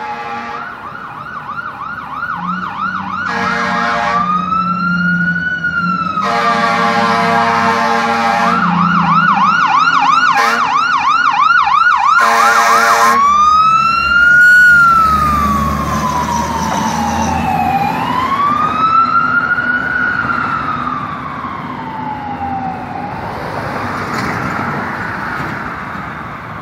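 Aerial ladder fire truck responding. Its siren switches between a fast yelp and a slow rising-and-falling wail, and the air horn blasts three times in the first half. The engine rumbles as the truck passes about halfway through, and the siren then fades into the distance.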